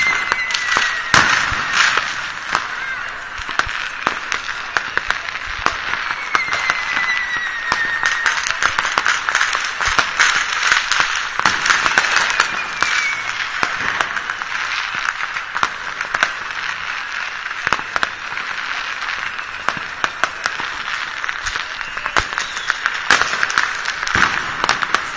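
New Year's fireworks and firecrackers going off all over a city: a dense, continuous crackle of pops and bangs, with a few whistles sliding down in pitch.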